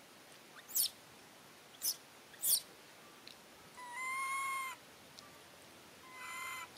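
Young macaque crying: three very short, high squeaks that fall steeply in pitch, then a longer whining call about four seconds in and a shorter, rougher one near the end.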